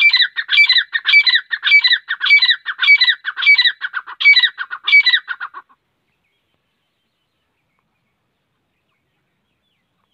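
Grey francolin calling: a loud, shrill call phrase repeated quickly and evenly, a little under two a second, that cuts off suddenly after about five and a half seconds.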